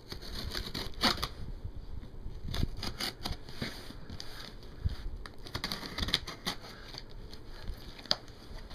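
A cardboard box being cut open with scissors used as a knife: the blade scraping along packing tape and cardboard, with scattered clicks and scrapes of the box being handled.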